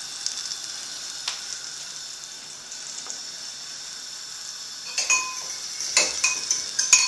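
Oil and melting butter sizzling steadily in a hot stainless steel frying pan as it heats for an omelette. In the last couple of seconds a few sharp clinks of cutlery on crockery join in.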